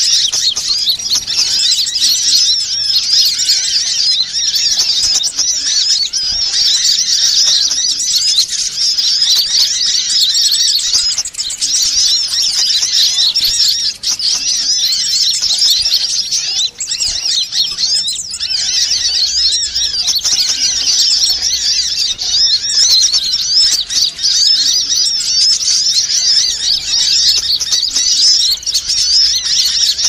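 Sunbirds (Indonesian 'kolibri') chattering and trilling in a dense, unbroken, high-pitched stream of rapid calls, with many voices overlapping. It is a bird-lure playback recording meant to draw small birds in.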